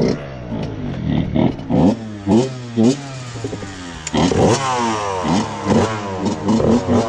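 Two-stroke dirt bike engines running, a steady idle under repeated quick throttle blips that rise and fall in pitch several times a second; the blips grow louder and longer about four seconds in.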